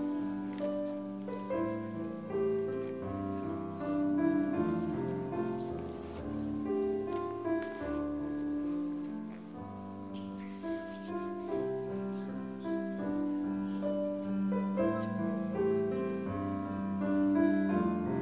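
Slow instrumental piano music: chords and melody notes, each held about a second.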